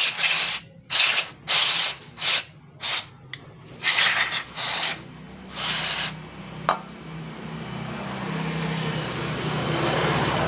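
Aerosol can of injector cleaner sprayed in about eight short hissing bursts onto a motorcycle throttle body, cleaning the dirt out of its bore. A sharp click follows, then a softer steady rustle builds near the end.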